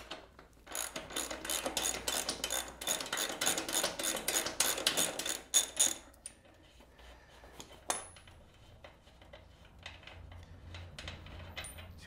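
Socket ratchet clicking rapidly for about five seconds as it undoes the 27 mm rear axle nut on a Triumph Tiger 800, then only a few faint scattered clicks.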